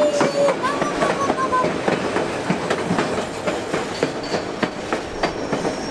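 White Pass & Yukon Route narrow-gauge passenger train running on the rails, its wheels clacking and rattling over the track with a couple of brief thin squeals in the first second or so.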